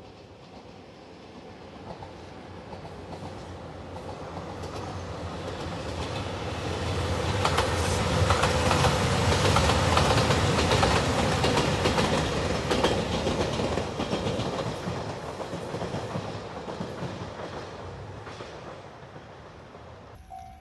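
A train passing close by on the line. It grows louder to a peak about halfway through, with the clacking of its wheels over the rail joints, then fades away.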